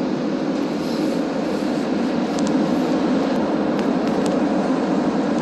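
Ride noise of a rubber-tyred Montreal metro train heard from inside the car: a steady rumble and hiss as the train pulls into a station, with a few faint ticks.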